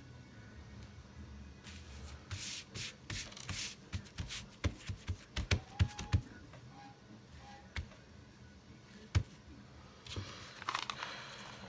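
Hands smoothing and pressing lace netting down onto a glued paper bag on a wooden tabletop: brushing rustles, then a quick run of sharp knocks, a single knock about nine seconds in, and more rustling near the end.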